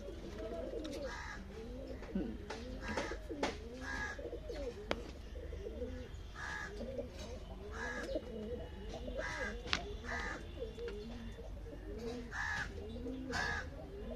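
A flock of domestic Andhra-breed pigeons cooing together, many overlapping coos without a break. Shorter, sharper bird calls come every second or so, over a steady low hum.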